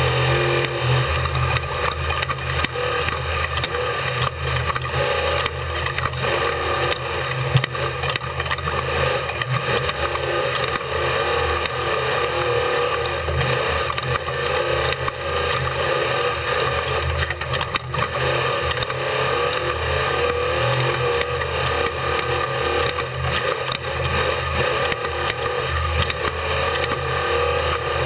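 Onboard sound of an Unlimited Class desert-race truck at speed: the engine running hard under continuous wind and road noise. Short knocks and rattles run throughout, the sharpest about seven and a half seconds in.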